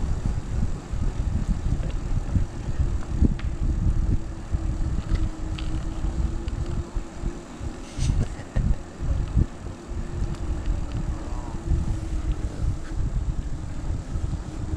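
E-bike riding along an asphalt trail: a steady hum from the bike under low, uneven wind rumble on the microphone, with a few light ticks.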